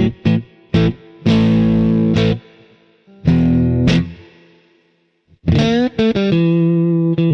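Fender Stratocaster electric guitar on its neck-and-middle pickup combination, played through a lightly overdriven amp: a few short choppy chords, then longer ringing chords with a short pause about two-thirds of the way through.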